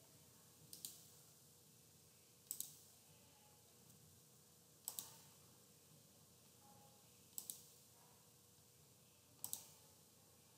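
Computer mouse button clicks, five sharp press-and-release double clicks spaced about two seconds apart, over faint room tone.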